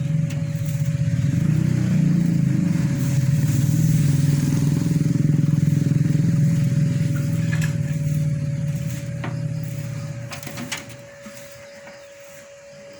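Domestic cat purring close to the microphone: a loud, steady, rough low rumble that fades out about ten seconds in. A faint steady thin whine runs underneath.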